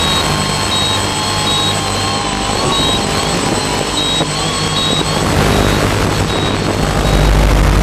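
Octocopter's electric motors and propellers running in flight, several wavering tones over a steady rush of noise. The low rumble grows louder near the end.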